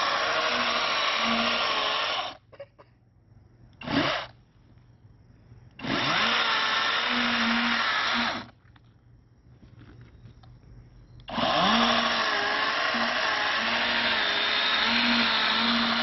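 Handheld electric power saw cutting into a pumpkin to free its lid, run in three long bursts with a short blip about four seconds in. Each burst starts with the motor spinning up, and its pitch wavers as the blade bites.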